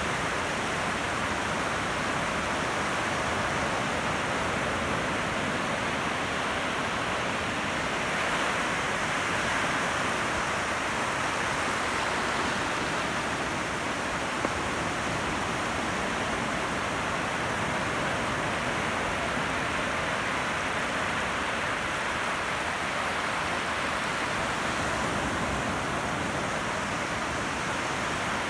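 Ocean surf in the surf zone: a continuous, even wash of breaking water with only a slight swell in level about nine seconds in.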